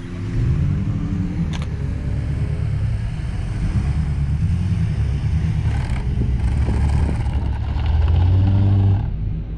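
A 4x4's engine running with the revs rising and falling, loudest about eight seconds in.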